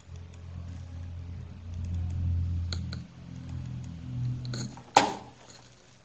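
A low hum that swells and fades for most of the stretch, with a couple of light clicks and then one sharp click about five seconds in, typical of computer mouse and desk handling noise picked up by a computer microphone.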